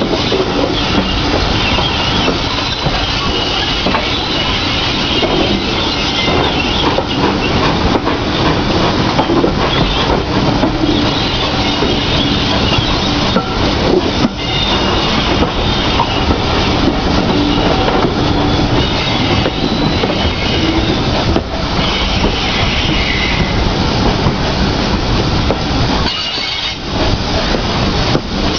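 A GWR pannier tank steam train running along the line, heard from one of its carriages: a steady rumble of wheels on rail, with rail-joint clicks and some wheel squeal as the train rounds a curve.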